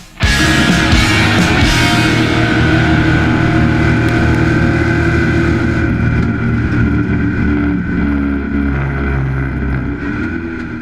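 Rock music soundtrack mixed with an off-road race truck's engine running steadily, both fading out near the end.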